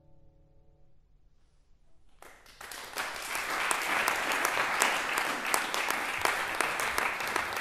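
The last notes of a classical guitar ring out and die away. About two seconds in, the audience breaks into applause, which builds within a second and keeps going steadily.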